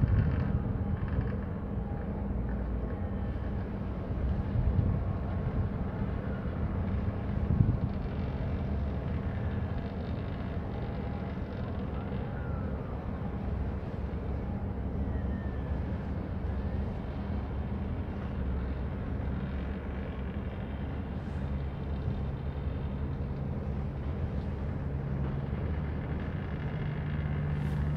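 Steady low engine rumble with a hum, wind buffeting the microphone in gusts during the first several seconds; the hum grows a little stronger near the end.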